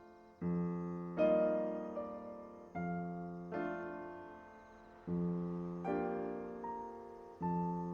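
Calm, slow piano music: soft chords struck every second or so, each left to ring and fade.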